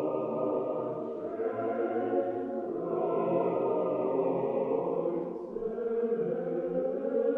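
Choir singing a slow Orthodox-style chant: long held chords in phrases, with brief pauses for breath between them.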